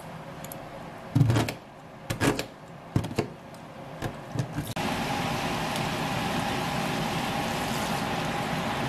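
Kitchen scissors snipping boiled glass noodles in a stainless-steel colander: a handful of sharp snips and clicks. About halfway a steady sizzle of vegetables stir-frying in a frying pan sets in.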